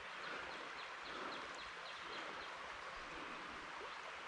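Steady rush of a small creek, with a bird giving a quick run of short, high chirps, about four a second, in the first half.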